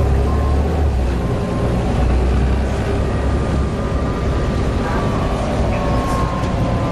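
Volvo B7TL bus running with a steady deep rumble, a thin whine drifting slightly in pitch above it: the strange whining, wailing noise the bus is known for.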